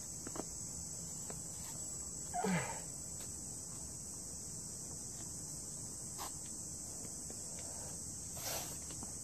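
Steady high-pitched insect chorus droning in the woods. About two and a half seconds in, and again near the end, it is broken by a short forceful breath or grunt from a climber pulling through hard moves on an overhanging boulder.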